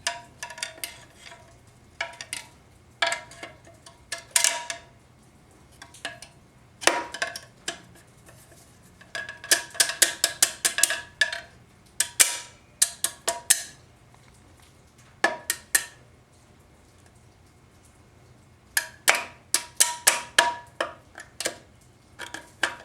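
Screwdriver and steel snap ring clinking and scraping against the 4L60E transmission case as the case snap ring is worked into its groove. The clinks come in irregular bursts of rapid, ringing metallic taps.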